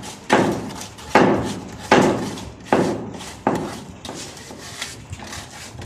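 Repeated hammer blows, a steady rhythm of about one strike every 0.8 seconds. Five strong blows are followed by lighter ones near the end.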